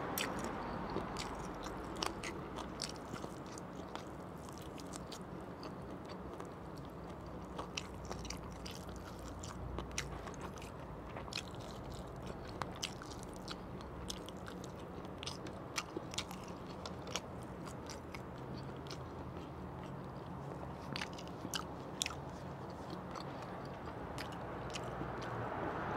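Close-up mouth sounds of a person biting and chewing grilled barbecue chicken: scattered sharp, wet clicks and smacks throughout, over a low steady hum.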